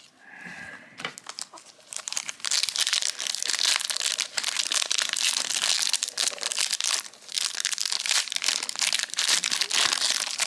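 Foil trading-card pack wrapper being torn open and crinkled in the hands, a dense crackling rustle starting about a second in.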